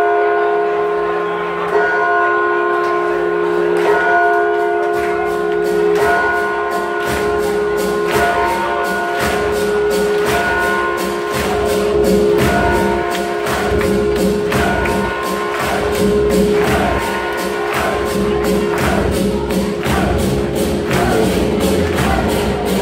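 Music playing over the loudspeakers with long held chords. From about six seconds in, a crowd claps along in time, about two claps a second, growing stronger toward the end.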